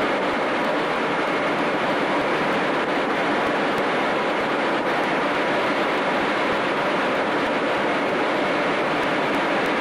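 A B-52 bomber's jet engines and rushing air in flight, heard from inside the aircraft: a steady, unbroken noise with a faint constant whine in it.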